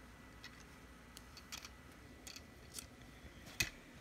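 Faint, scattered clicks and taps of plastic Duplo bricks being handled and pressed onto the train, with one sharper click about three and a half seconds in.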